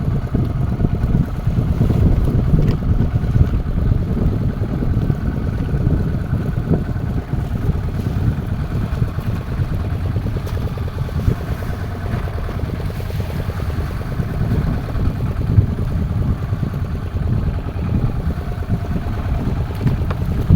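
Fishing boat's engine running steadily, a dense low rumble.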